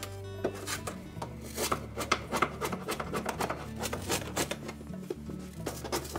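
Stiff steel putty knife scraping a worn, glued-on felt seal off the sheet-metal lip of a dryer front panel, in repeated short scraping strokes, several a second.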